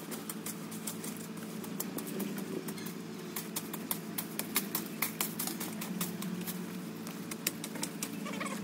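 Long-handled hand tools scraping and raking through dry leaf litter and twigs: an irregular run of crackles and scrapes, over a steady low hum.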